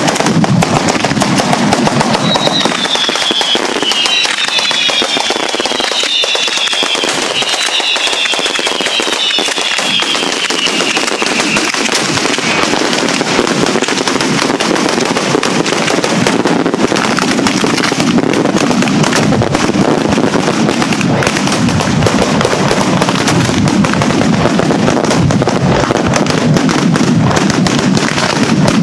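A batteria bolognese, a long ground chain of firecrackers, going off in a dense, unbroken crackle of rapid bangs. Several falling whistles sound over it in the first half.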